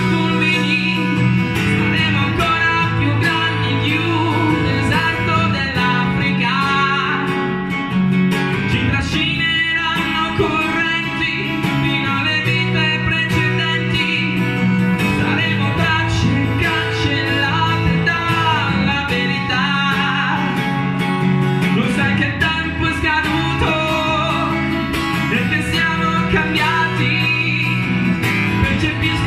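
A man singing live to his own acoustic guitar, with the guitar keeping up a steady accompaniment under the melody.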